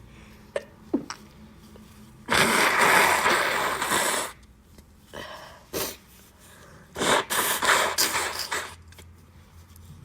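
A woman sneezing: one long, loud sneeze about two seconds in, a short burst near the middle, then a quick run of further sneezes near the end.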